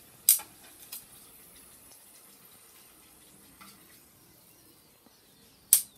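Cooking utensil clinking sharply against cookware while fried potato wedges are lifted out of the oil: two loud clinks, near the start and near the end, with a couple of softer taps between. Under them, a faint steady sizzle of hot frying oil.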